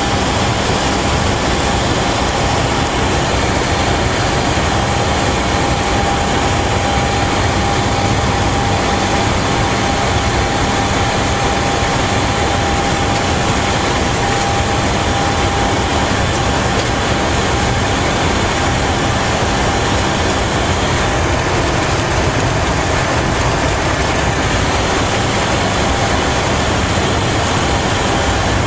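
Steady running noise inside the cab of a BDZ class 44 Škoda electric locomotive moving along the line, with a low hum underneath. A thin steady whine sits above it and fades after about halfway.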